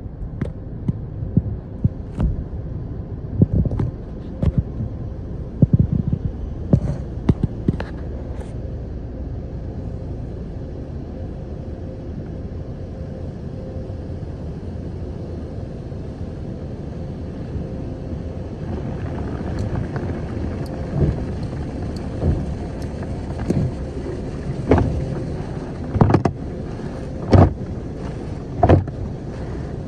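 Automatic tunnel car wash heard from inside the car: a steady low rumble of the wash machinery with a faint hum, and irregular thuds of cloth brush strips slapping the body. From about two-thirds of the way in, a hiss of water spray and foam brushes scrubbing the windshield joins in, with louder slaps near the end.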